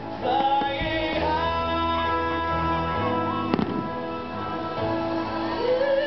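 Music with sustained notes plays throughout, and a single sharp firework bang comes about three and a half seconds in.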